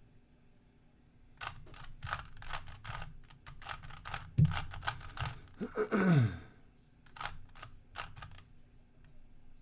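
Rubik's cube being turned by hand: a run of quick plastic clicks and rattles as the layers are twisted, with a low knock near the middle. About six seconds in comes a short, loud, falling vocal groan.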